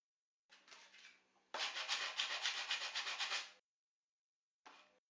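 Sandpaper rubbed quickly back and forth over the end of an oak chair leg, a faint start and then a loud run of rapid, even strokes, with a short burst again near the end. The leg is being sanded down to take up a gap so the chair stops rocking.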